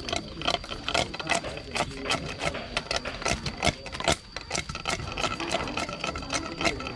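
A knife chopping quickly, about three or four irregular strokes a second.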